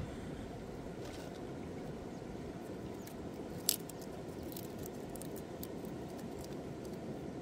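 A garlic bulb being broken apart into cloves by hand, its papery skins crackling in a scatter of small crisp clicks that start a few seconds in, with one sharp crack about halfway. A steady low background rumble runs underneath.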